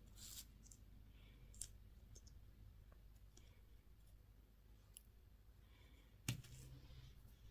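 Sparse, faint clicks and light crackles of candy and toy packaging being handled, with one sharper knock about six seconds in.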